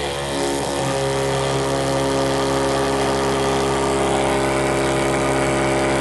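Small electric deep-cleaning pump for a Kangen water ionizer running with a steady hum, having just been switched on at the power socket. Its tone shifts in the first second and then settles as it starts pushing the citric-acid cleaning solution through the ionizer's hoses.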